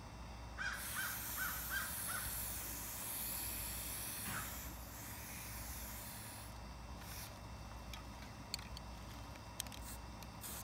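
Aerosol spray-paint can hissing as paint is sprayed onto foam, stopping about six and a half seconds in, followed by a few light clicks. About a second in, a bird calls five times in quick succession.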